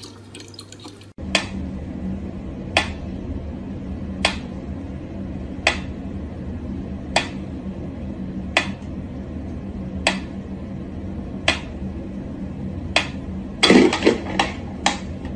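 Mechanical pendulum metronome ticking slowly and evenly, about one sharp tick every second and a half. A brief louder burst of sound near the end breaks the pattern.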